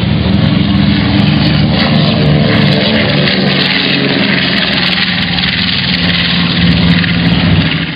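Propeller airplane's piston engine running loudly and steadily, with a slight slow drop in pitch in the first few seconds.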